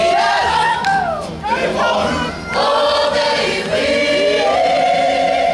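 Kapa haka choir singing a waiata tira, a choral item, in several-part harmony with sliding notes. There is a short break about two seconds in, then a long held chord near the end.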